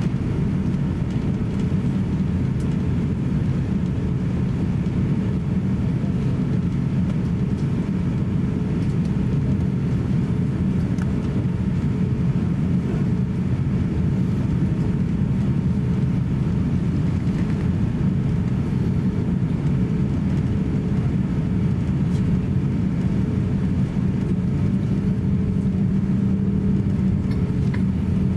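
Steady low drone inside the cabin of an Airbus A350-900 taxiing on the ground, its Rolls-Royce Trent XWB engines running at taxi power, with a faint steady hum in the noise.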